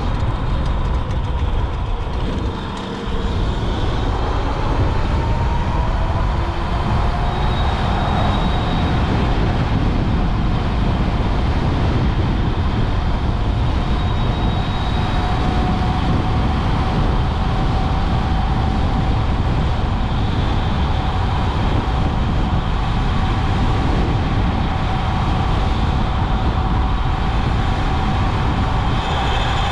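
Wind rushing over the microphone and tyre noise from an electric motorcycle riding at speed on a paved road. A faint, steady whine from the electric motor sits under the noise.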